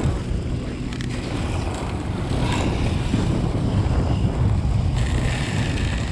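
Wind buffeting the microphone over the wash of sea water churning along a boat's hull, a steady low rumble.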